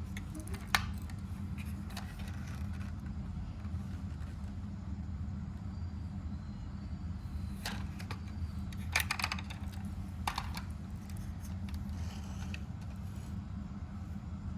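Steady low hum with a few sharp clicks and short rattles of small objects being handled. The loudest click comes about a second in, and a cluster of rattles follows around the middle.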